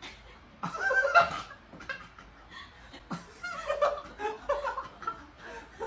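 A person snickering and laughing quietly in short, broken bursts.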